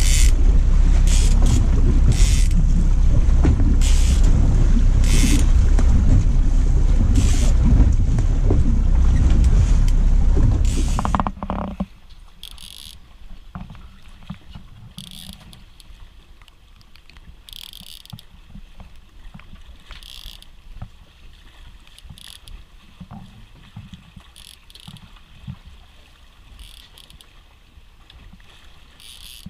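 Low rumble of wind buffeting the microphone on the open boat deck, with short high hisses about once a second. About 12 seconds in, the rumble drops away suddenly, leaving a quiet background with occasional short hisses.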